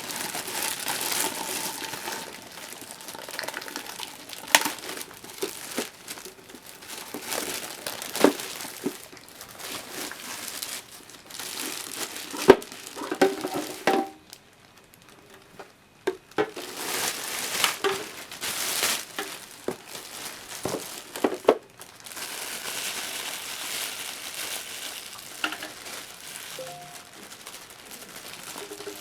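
Plastic wrapping crinkling and tearing as it is pulled off a new humidifier, with scattered sharp knocks and a short quiet pause about halfway through.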